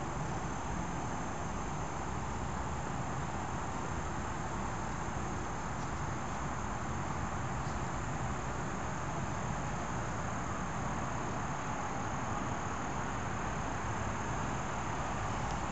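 Steady outdoor ambience: a continuous high insect trill, like crickets, over an even hiss and low rumble, with no changes or distinct events.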